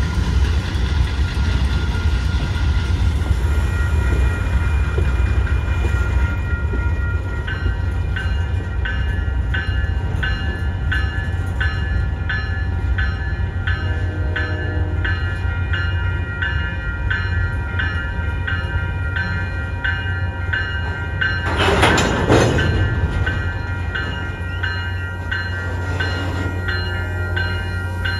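Diesel passenger train running by with a steady low rumble. From about seven seconds in, a grade-crossing bell rings in a steady rhythm, and about two-thirds of the way through there is one brief loud burst.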